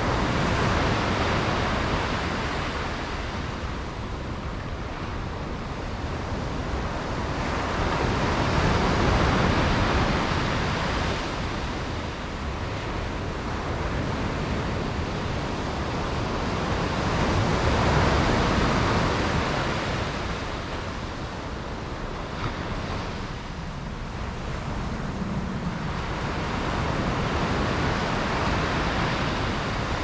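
East Sea surf: waves breaking and washing in, swelling about every eight to nine seconds over a continuous low rumble of the sea.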